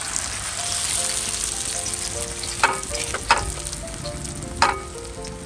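A raw minced-meat chapli kabab frying in melted fat on a large flat tawa: a loud, steady sizzle that eases slightly toward the end. Three sharp clicks, two in the middle and one near the end, from the metal spatula against the pan.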